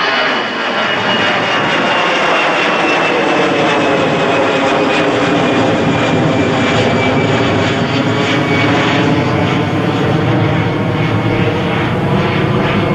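Passenger airliner's engines passing close by. The roar is loud and steady, and its whining tones slowly fall in pitch as the aircraft goes past.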